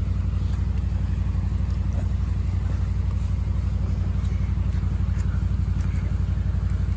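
Honda Rancher 420's single-cylinder four-stroke engine idling steadily with an even, rapid low pulse.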